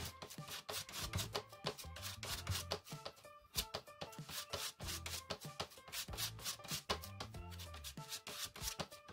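Metal palette knife scraping and smearing thick acrylic paint across a palette board in many short, quick strokes, with background music playing underneath.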